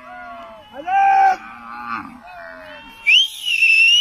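A man calling a herd of cows with long, drawn-out vocal calls, the loudest about a second in, then a piercing whistle about three seconds in that dips and rises in pitch.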